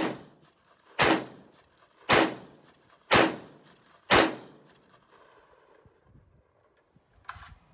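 Five single shots from an AR-15 pistol fired about a second apart, each a sharp crack with a short fading echo.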